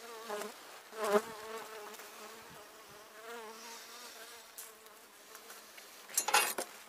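Honeybees buzzing at the hive entrance, a wavering hum that swells briefly about a second in as a bee passes close. Near the end comes a short metallic clatter as the toothed metal entrance strip is handled.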